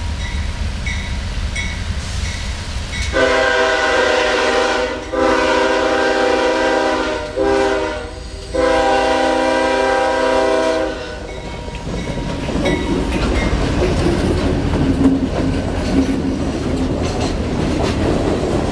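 CSX freight train's locomotive air horn sounding the grade-crossing signal, a chord of several tones in two long blasts, a short one and a final long one, over the low rumble of the approaching diesel locomotive. After the horn stops the train rolls past, the freight cars' wheels clicking over the rail joints.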